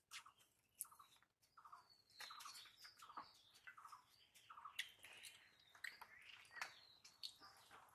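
Near silence: faint scattered clicks of eating by hand from steel plates, with a few faint bird chirps.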